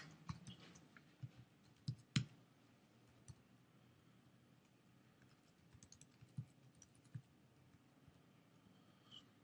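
Faint, irregular keystrokes of typing on a computer keyboard, the loudest clicks about two seconds in.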